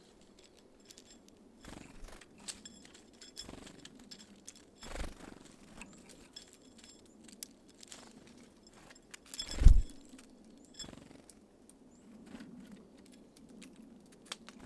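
Small birds at a feeder: scattered light taps, pecks and scratches of beaks and feet on the feeder, with one louder thump almost ten seconds in.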